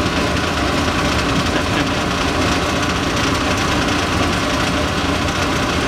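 Rotary-vane vacuum pump running steadily with a constant hum while it evacuates the chamber, drawing out the chlorine-laden gas.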